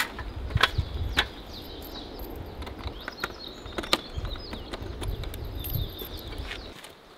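A few sharp clicks and knocks as the metal buckle latches of a hard-shell rooftop tent are handled, with birds chirping in the background.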